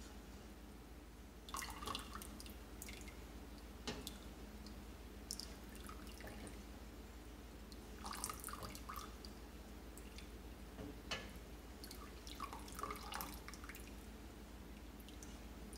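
Citric acid solution trickling and dripping from a glass measuring cup into a pot of hot milk, in short faint splashy spells while it is stirred in to curdle the milk, with a couple of light knocks.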